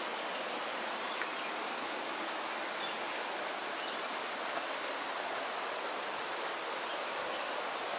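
River rushing steadily below, an even noise without pauses, with a few faint ticks.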